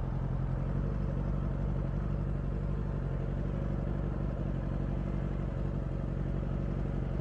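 Motorcycle engine idling steadily, an even low rumble.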